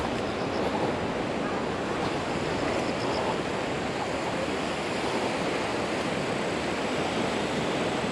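Steady wind and the continuous wash of wind-driven waves on a lakeshore.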